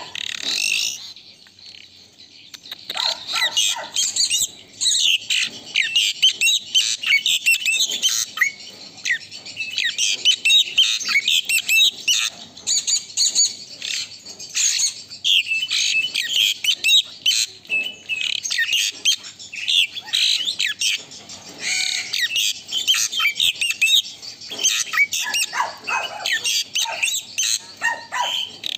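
Asian pied starling singing a long, busy stream of fast chattering whistles, chirps and squawks, with a short lull near the start. The bird is in full, vigorous song (gacor).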